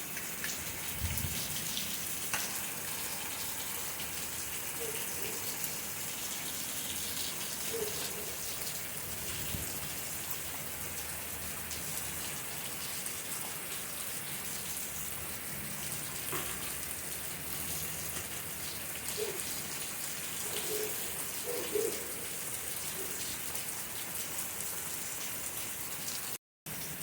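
Steady rain falling, an even hiss with a few scattered louder drops. The sound cuts out for a moment near the end.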